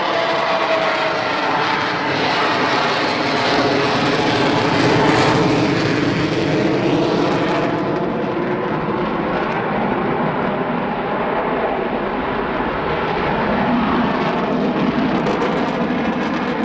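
Avro Vulcan bomber's four Rolls-Royce Olympus jet engines passing low and loud: a continuous jet roar with a faint whine that slowly falls in pitch over the first second or so. The highest hiss thins out about eight seconds in.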